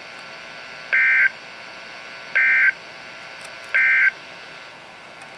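Emergency Alert System end-of-message signal: three short, identical bursts of SAME digital data tones about a second and a half apart, over a steady hiss. It marks the end of the alert broadcast.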